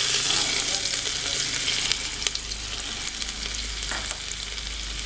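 Chopped ginger sizzling in hot ghee at the bottom of a pressure cooker, loudest at first and easing slightly, with a few sharp ticks.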